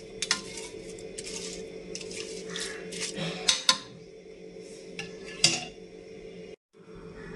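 Irregular metallic clinks and light scrapes of a utensil against a steel pressure cooker pot, a dozen or so strikes, over a steady hum.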